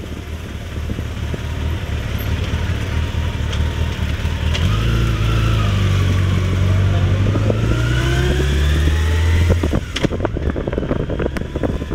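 Motorcycle engines running at low speed while filtering between stopped trucks. A deep, steady truck diesel drone comes in close by from about four and a half seconds and drops away near the ten-second mark. An engine rising in pitch as it speeds up is heard toward the end of that stretch.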